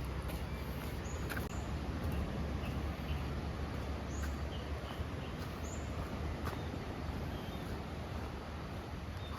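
Seaside outdoor ambience: a steady low rumble and even wash of noise, with a few faint, short bird chirps scattered through.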